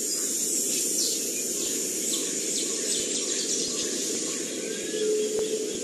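Forest ambience: a steady insect hum with scattered short bird chirps and calls over it.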